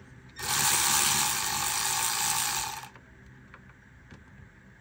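Cordless ratchet running for about two and a half seconds and then stopping, spinning out the last 10 mm bolt that holds the side mirror.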